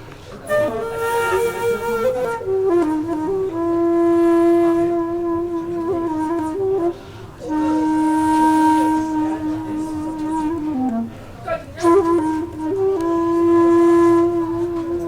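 Background music: a solo flute playing a slow melody of long held notes that step between pitches, with short breaks between phrases.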